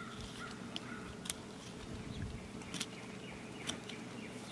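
Faint bird calls in the background during the first second, over a low steady hum, with a few sharp clicks from knife work on the turkey carcass.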